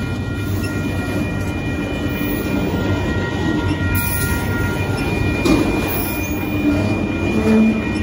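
Freight train of autorack cars rolling past: a steady rumble of steel wheels on rail with a few clicks over the rail joints, and thin high steady tones above it.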